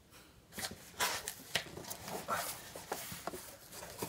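Cardboard shipping box flaps being pulled open, with a run of short rustles and scrapes of cardboard rubbing on cardboard starting about half a second in.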